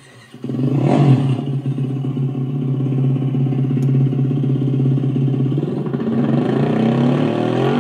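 Simulated two-stroke moped engine sound played through the speaker of a universal e-bike sound generation module. It starts up about half a second in with a quick blip, idles steadily, then rises in pitch near the end as the throttle pedal is pressed.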